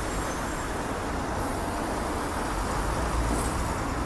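Steady city street traffic noise with a low engine rumble.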